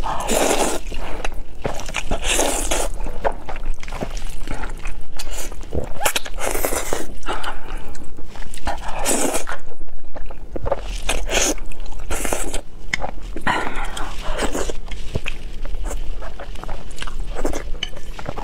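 Close-miked eating: about seven long, loud slurps of spicy noodles, with wet chewing and mouth clicks between them.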